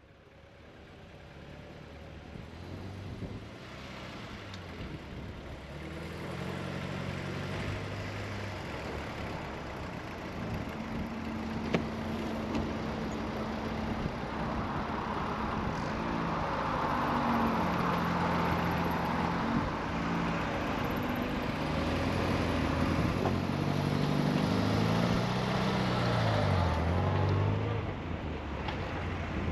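Car engine running under way, its pitch rising and falling as it accelerates and changes gear. It fades in from silence over the first few seconds and is loudest in the second half.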